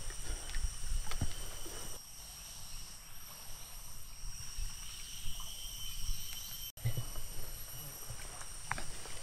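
Hillside ambience of insects droning at a few steady high pitches, over a low rumble with scattered light clicks and knocks. The sound cuts out for an instant about two-thirds of the way through.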